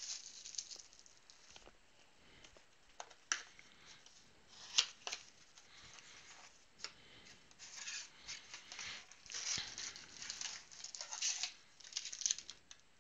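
A cardboard trading-card blaster box being torn open and its foil-wrapped card packs pulled out: a few sharp cardboard snaps and tears, the loudest about five seconds in, then bursts of crinkling rustle from the foil packs.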